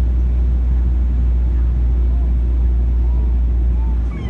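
Steady low rumble inside the cabin of an Embraer E195 jet airliner in descent: its CF34-10E turbofan engines and the airflow, heard from a window seat beside the wing. The rumble dips briefly near the end.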